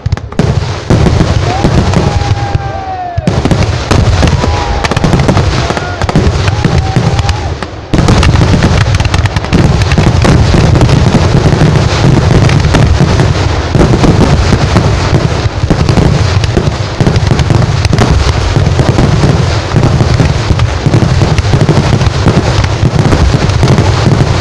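Ground-fired festival fireworks going off in a dense, rapid barrage of firecracker bangs and crackling, very loud throughout. The barrage thickens into an almost unbroken roll of explosions about eight seconds in.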